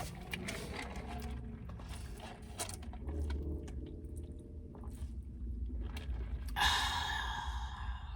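Close-miked chewing and mouth clicks while eating a burger. Over a second of loud breathy hiss starts about six and a half seconds in.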